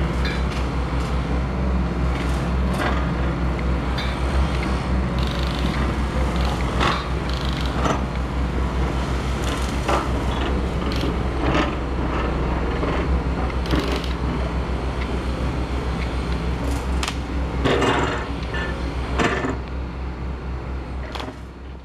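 Double E remote-control toy excavator working its arm: a steady low hum with scattered plastic clicks and knocks, fading out at the very end.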